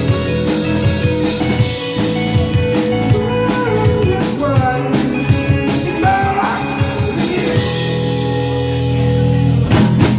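Live rock band playing: drum kit and electric guitar, with sliding melody lines in the middle. Near the end the drums mostly drop out under a held chord, then a couple of strikes come in.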